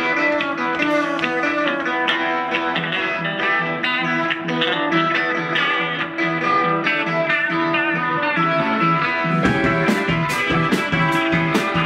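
A live rock band plays an instrumental passage of electric guitars and keyboard over a repeating bass line. About nine and a half seconds in, the drums come in with a steady beat.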